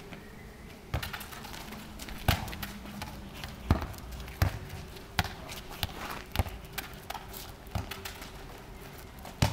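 Football being kicked and bouncing on a hard tarmac court: a string of sharp thuds at irregular intervals, about a second apart, with lighter taps between.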